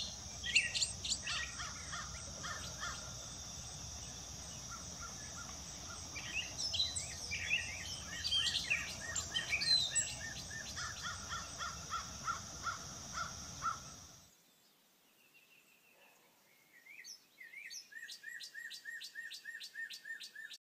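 Dawn chorus: several birds calling and singing over a steady high insect buzz, which cuts off abruptly about two-thirds of the way through. After a short lull, one bird repeats a short note about three times a second.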